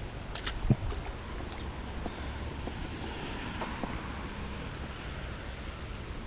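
Heavy rain falling: a steady hiss with scattered small drop taps, and one low thump just under a second in.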